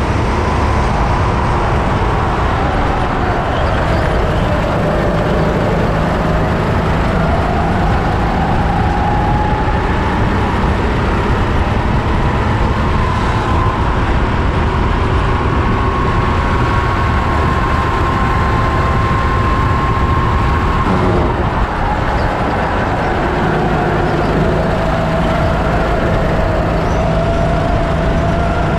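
Onboard sound of a Sodi rental racing kart's four-stroke engine at racing speed: its pitch falls into the corners and climbs on the straights, holds high for several seconds, then drops sharply about three-quarters of the way through before climbing again.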